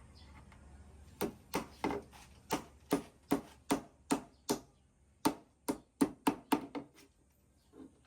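Hammer blows: a run of about sixteen sharp strikes, roughly three a second, with a brief pause midway.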